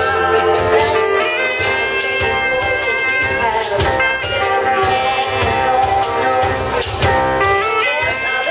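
Live band playing a song: a woman singing with saxophone, keyboard, electric guitar, bass guitar and drums.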